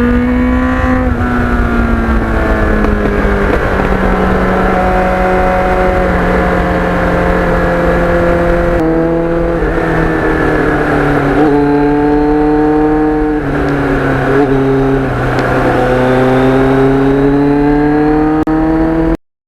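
Motorcycle engine running under way, its pitch drifting and stepping up and down several times as the revs change, with a low rumble of wind noise.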